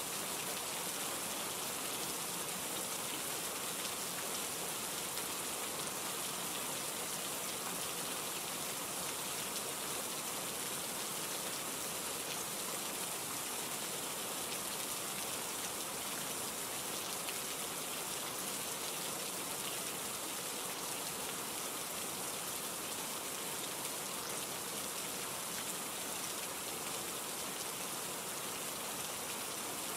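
Steady rain, an even hiss that holds at one level with no single drops or thunder standing out.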